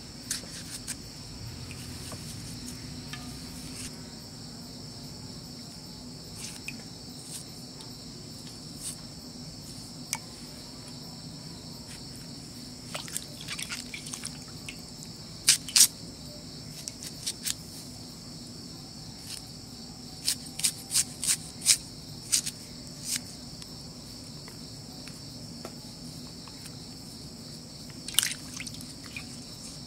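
Crickets chirring steadily, with water dripping and splashing and sharp clicks from vegetables being cut, peeled and rinsed by hand in a steel bowl of water; the clicks come in a cluster in the middle and once more near the end.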